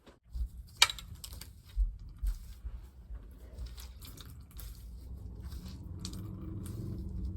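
A soaked, skinless Furby toy being handled and squeezed dry: wet squishing and dripping with irregular clicks and knocks, the sharpest about a second in.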